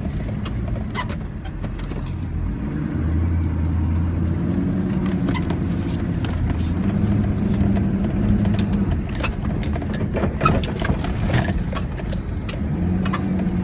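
A 4x4 vehicle's engine running as it drives, its note rising about three seconds in and shifting again later, with scattered clicks and knocks from the vehicle going over rough ground.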